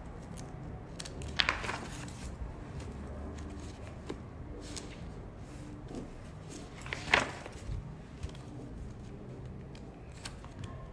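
Two sharp clicks or knocks, about a second and a half in and about seven seconds in, with fainter taps between, over a low steady hum.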